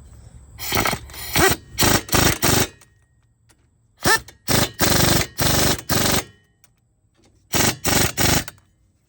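Loose bolts and nuts rattling and scraping in a metal bucket of hardware, in three bursts of rapid clattering separated by short pauses.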